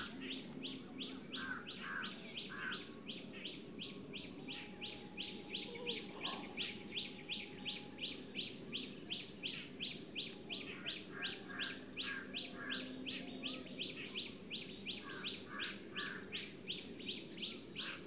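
Birds calling: a short high chirp repeated about three times a second on a steady rhythm, with small groups of two or three lower calls every few seconds, over a steady high hiss.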